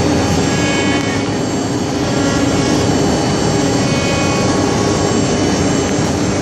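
4-axis multi-head wood CNC router running: steady spindle whine with several held tones over dense machining noise.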